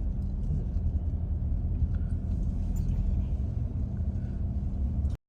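Steady low rumble of a moving vehicle, with a faint steady hum, cutting off abruptly near the end.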